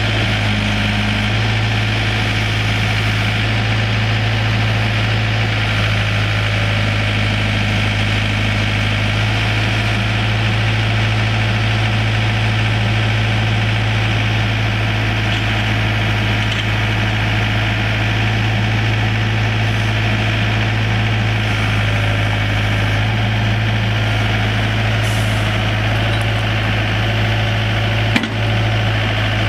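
Four-cylinder diesel engine of a 2001 Komatsu PC75 mini excavator idling steadily, with one sharp click near the end.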